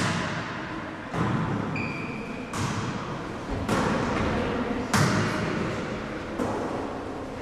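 Volleyball struck again and again in a rally in a large sports hall: about six sharp hits, spaced a little over a second apart, each ringing on in the hall's echo.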